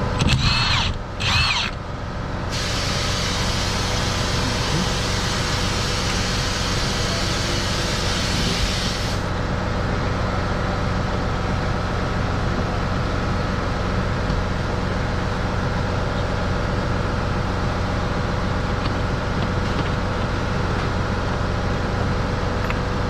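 A steady mechanical hum runs throughout. A loud hiss sits over it from a couple of seconds in until about nine seconds in, and two short rising-and-falling squeaks come right at the start.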